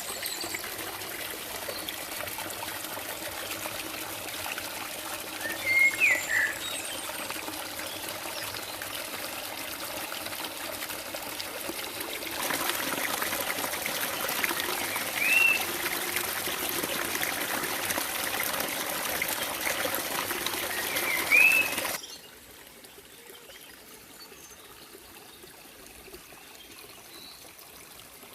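Water trickling and running steadily, with a few short, loud bird chirps over it and fainter calls in the background. The water sound jumps louder abruptly about halfway through, then drops much quieter near the end.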